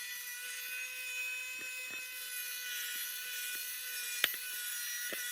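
Small electric motor of a handheld power tool running at one steady speed for about five seconds with a high, even whine, then stopping, with a sharp click about four seconds in.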